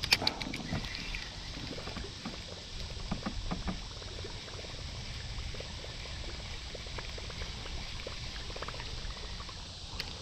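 Quiet water sounds around a kayak on a river: light trickling and lapping, with scattered soft clicks and knocks, a few stronger ones in the first second and again about three seconds in.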